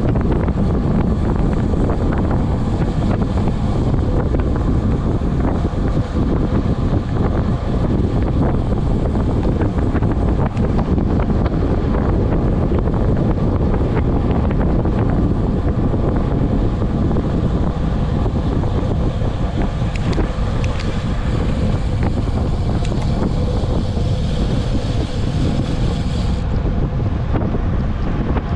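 Wind rushing over the microphone on a fast downhill road descent: a loud, steady, unbroken rush. The highest part of the hiss cuts off suddenly near the end.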